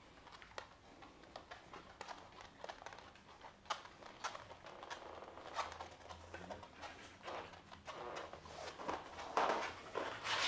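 Small dogs' footsteps: claws ticking faintly and irregularly on the floor as they walk about.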